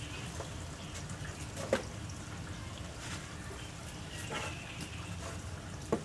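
Chopped garlic being sprinkled by hand into a wooden mortar of salad vegetables: a soft wet rustle with a few light clicks and knocks on the wood, the sharpest just before two seconds in and near the end.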